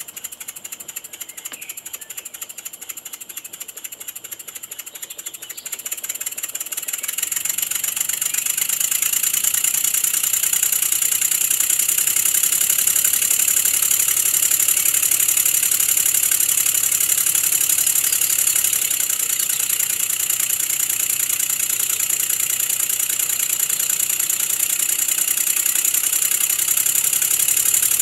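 Wig-Wag triple inline model engine running on compressed air, its three cylinders' exhaust making a rapid, even chuff chuff with a high air hiss. About six seconds in it speeds up and gets louder, then runs fast and steady.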